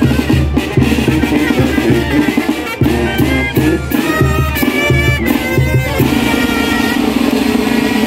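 A brass band with drums plays a lively dance tune with a steady beat: the music of a Oaxacan calenda procession.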